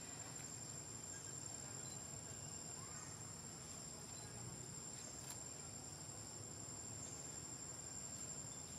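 Steady, high-pitched drone of insects, a continuous shrill tone that holds unbroken over faint outdoor background hiss.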